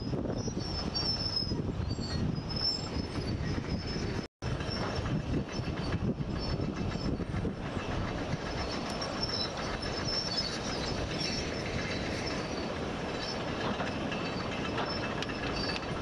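Steady rushing roar of breaking surf, with a strong low rumble. The sound drops out completely for a moment about four seconds in, then carries on.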